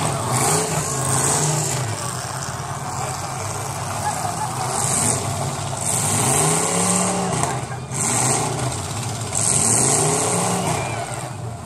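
Demolition derby cars' engines revving hard, the pitch swinging up and falling back several times as the cars push and ram each other.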